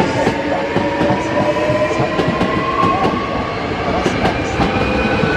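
Hankyu 7300-series electric commuter train running into a station and slowing. The wheels clatter over the rail joints, and a whine at several pitches at once slowly rises.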